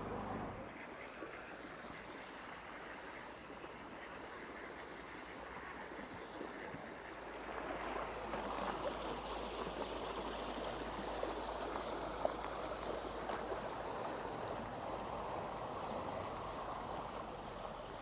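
Steady rushing of river water, growing louder about seven seconds in, with a faint low hum for several seconds in the middle.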